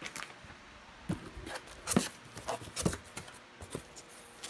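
Cardboard shipping box being opened by hand, its flaps pulled back and handled. It makes a string of irregular scrapes and knocks, the loudest about two seconds in.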